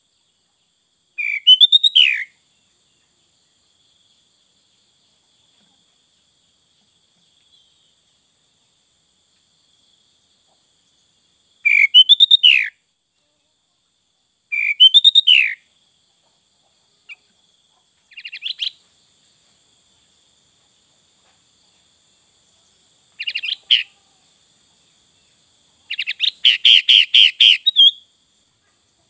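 Sooty-headed bulbul (kutilang) singing in short, separated phrases of loud whistled notes that sweep down in pitch, six phrases in all. The last is a longer, rapid run of notes near the end.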